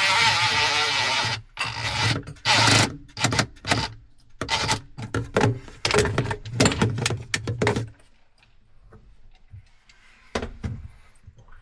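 Handling noise from tools and parts during an installation: a harsh noisy burst about a second long, then a run of sharp knocks and clatters that stops about two-thirds of the way through.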